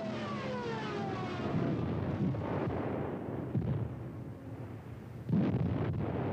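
An aircraft engine drones past, its pitch falling over the first second or so. Then come a few explosions, the loudest about five seconds in.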